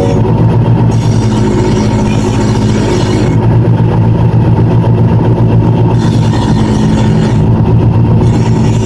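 Electric sharpening grinder's motor running with a steady low hum. A knife blade is pressed to the wheel in stretches of a second or more, and each stretch adds a hissing grind.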